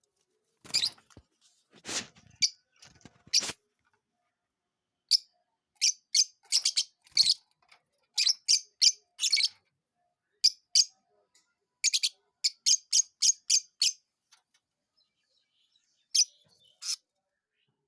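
Lovebirds chirping: short, shrill chirps in quick runs of several at a time, with brief silent pauses between the runs.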